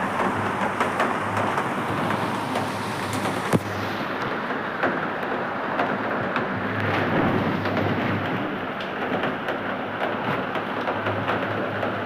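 Steady heavy rain falling outside, a dense even hiss with scattered sharp clicks; the sharpest click comes about three and a half seconds in.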